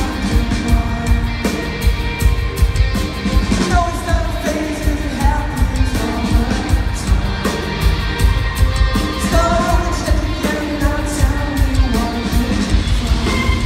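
Live rock band with a full orchestra playing, with sung vocal phrases over a steady drum beat, heard from the audience.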